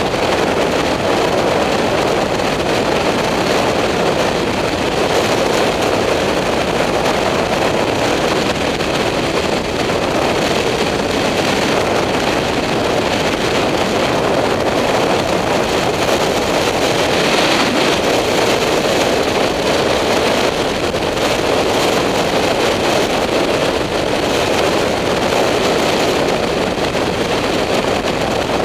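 Steady rush of wind over a helmet-mounted camera at road speed, mixed with the running of a BMW F800GS motorcycle's parallel-twin engine at a constant cruise.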